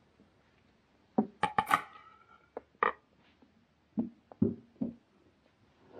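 Plates and utensils being handled: a quick cluster of clicks and knocks with a brief ring about a second in, then a few single knocks under a second apart.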